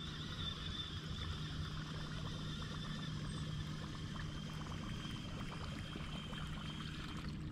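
A small electric motor on a bass boat humming steadily, with a faint high whine, over light trickling water.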